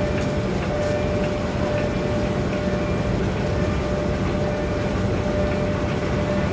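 A train's diesel engine running steadily: an even, low drone with a constant thin whine over it.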